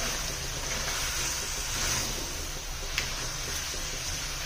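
Chicken, tomatoes and spices frying in oil in a steel pan, a steady sizzling hiss, with a spatula stirring and one light knock against the pan about three seconds in.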